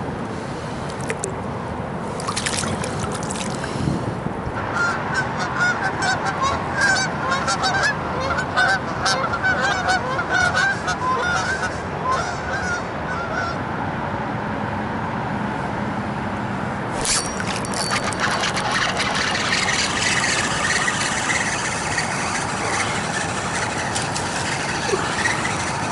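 A flock of geese flying over, honking over and over for several seconds. Later a steady hiss takes over.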